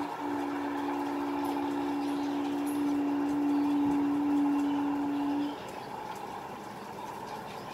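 Horn of an approaching electric-hauled express train sounding one long blast of about five seconds, two notes held together, cutting off about five and a half seconds in.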